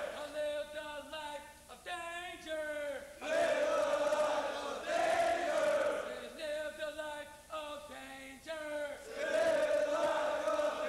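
Call and response: a single male voice, a Marine drill instructor, calls out in long, drawn-out, sing-song phrases. A platoon of recruits answers twice with a loud unison shout.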